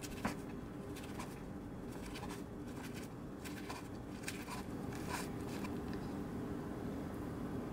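Sharp kitchen knife slicing a seaweed-wrapped rice roll into rounds: a crisp cut through the seaweed and a light knock on the wooden cutting board with each slice, about a dozen slices in quick, uneven succession.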